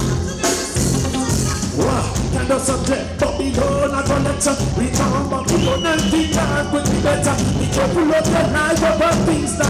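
Live reggae band playing, with a steady pulsing bass line under a melodic lead line.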